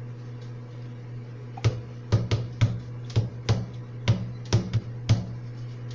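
Microwave oven running with a steady low hum. From about two seconds in, a series of about ten sharp taps or clicks comes at roughly two a second; these are the loudest sounds.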